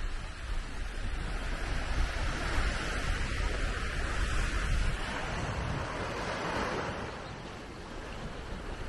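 Small waves washing and breaking onto a sandy shore, with wind rumbling on the microphone until about halfway through.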